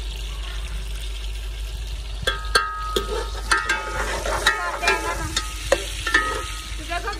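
Steel ladle stirring in an aluminium cooking pot. From about two seconds in it clinks repeatedly against the pot's sides with short metallic rings, over a steady hiss.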